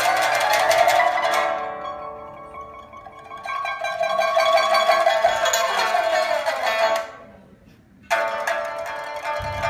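Solo pipa playing: rapid tremolo passages, a note bent downward in pitch about six to seven seconds in, a short near pause, then a sudden loud strummed passage about eight seconds in.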